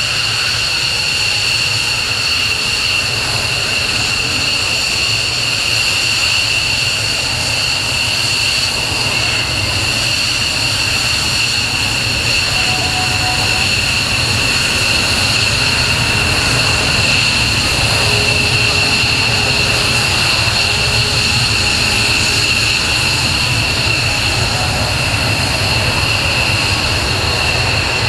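Military jet engines running: a loud, steady roar with a high-pitched whine held throughout.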